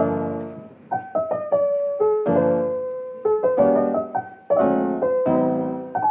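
Background piano music: a gentle melody of single notes between struck chords, each note starting sharply and fading away.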